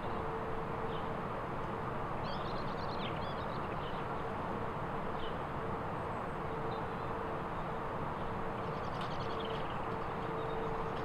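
Outdoor ambience: a steady rushing hiss and a constant low hum, with birds chirping briefly now and then, most clearly about two seconds in and again near the end.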